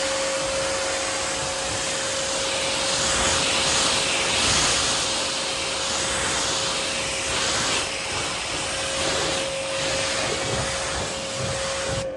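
Pressure washer rinsing car paintwork: a steady motor hum under a hissing water spray that swells and fades as the jet moves over the panels.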